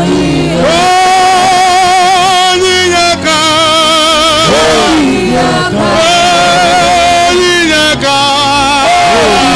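Gospel worship singing: a voice holding long notes with vibrato over instrumental accompaniment, with brief breaths between phrases at about three and eight seconds in.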